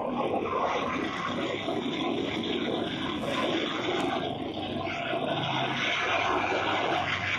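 Burning electric van at a charging station: a steady rushing noise of the fire, with a couple of faint sharp cracks partway through.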